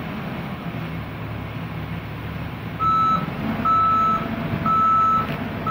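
Travel alarm on a Caterpillar tracked excavator giving half-second beeps about once a second from about three seconds in, the sign that the machine is travelling. Under it is the steady low running of the excavator's engine.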